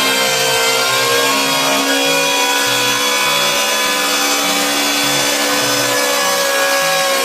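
An electric power saw cutting through wood: a steady motor whine over the rasping noise of the cut.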